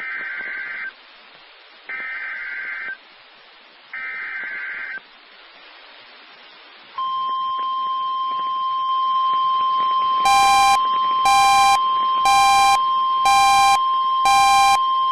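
Emergency Alert System SAME data header played three times as one-second bursts of screeching data tones, about two seconds apart, followed by NOAA Weather Radio's steady single-tone attention signal announcing a tornado warning. Near the end, five louder electronic beeps about a second apart sound over the steady tone.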